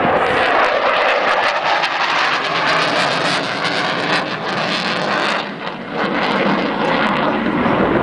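Twin jet engines of a MiG-29 fighter in a hard, vapour-trailing turn: a loud, steady rushing noise that dips briefly about two-thirds of the way through, then comes back.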